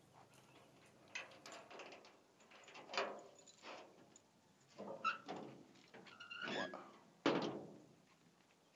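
Rusty perforated steel hatch door over an underground shelter being handled and opened: a series of separate metal clanks and knocks, the loudest about seven seconds in.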